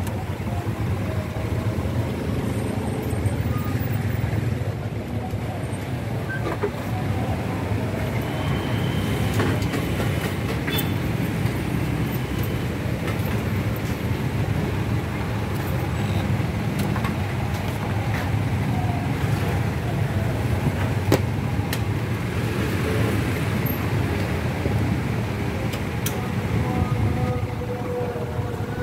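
Steady low rumble of idling vehicle engines and nearby road traffic, with a few faint clicks.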